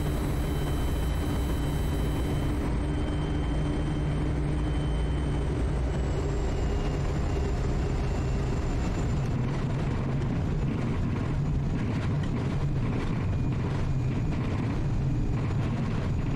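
Quest Kodiak's single PT6A turboprop and propeller running steadily at low power through the flare and landing, with a thin high whine that drops slightly in pitch about six seconds in. From about ten seconds in, irregular knocks and rattles come through as the wheels touch down and roll on the grass strip.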